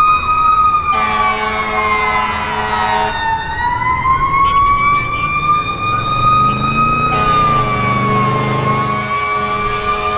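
Fire engine siren in a slow wail, its pitch sliding down and back up twice. Two long horn blasts of about two seconds each, about a second in and again about seven seconds in, sound over it.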